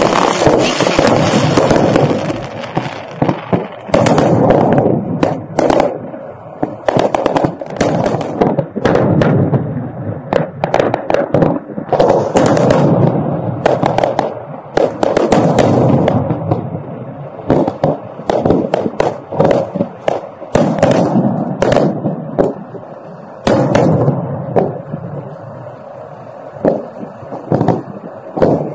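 Aerial fireworks display: a dense, irregular barrage of shell bursts and crackling, several bangs a second. It eases off for a few seconds a little past the middle before building again.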